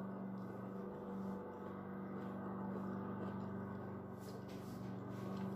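A lawn mower cutting grass in a nearby garden, running as a steady, constant hum.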